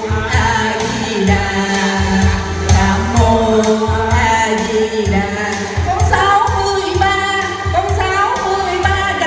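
A woman singing a Vietnamese lô tô song into a microphone, amplified through a PA, over live band accompaniment with keyboard and a steady drum beat.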